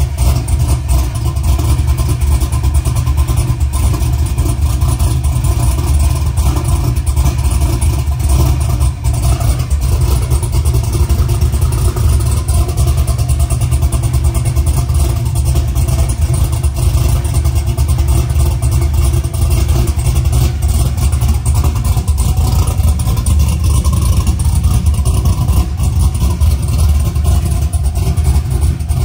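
Cammed 370-cubic-inch 6.0 LS V8 truck engine with longtube headers and dual 3-inch exhaust, running steadily at an even engine speed with a deep exhaust note and no revving.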